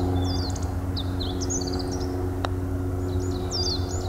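Small birds chirping and twittering over a steady low hum, with a single sharp click about two and a half seconds in: a putter striking a golf ball.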